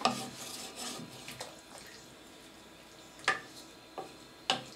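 Pan of soy mince, potato and carrot in broth sizzling softly, the hiss dying away over the first couple of seconds, with a few sharp taps of a utensil against the pan.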